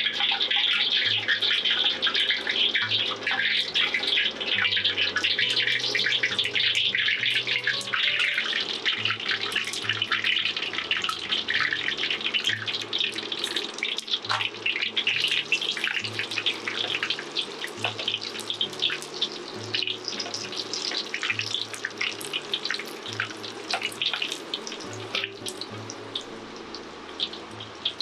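Starch-coated pieces of meat deep-frying in hot oil in a wok: a dense sizzle with constant crackling, loudest at first and gradually quieter. Faint background music underneath.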